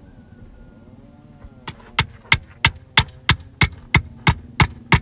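Claw hammer driving a nail into a wooden board, with sharp, even strikes about three a second that begin a little under two seconds in.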